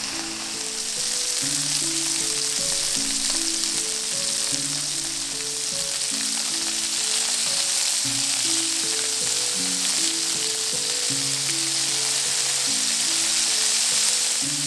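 Food frying in oil in a pan: a steady sizzle that grows a little louder about a second in and again near the end, under soft background music.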